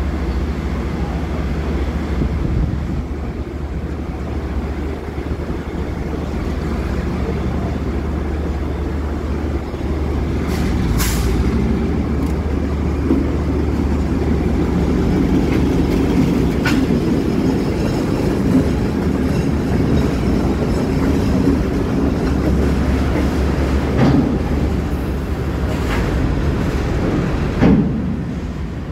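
Diesel freight train passing slowly: the locomotive's engine grows louder about ten seconds in as it draws alongside, then the freight cars roll by with steady wheel rumble and several sharp clanks.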